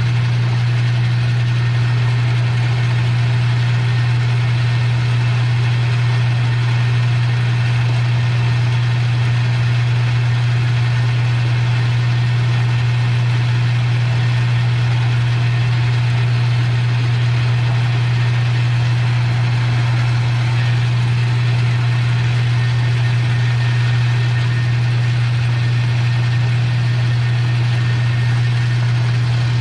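Metal lathe running steadily through a light turning pass that takes the diameter down by a few thousandths, with a strong, constant low motor hum.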